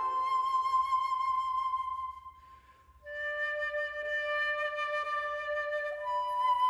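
Slow background music of long held notes, several sounding together, that fades away about two seconds in and comes back with new held notes about three seconds in.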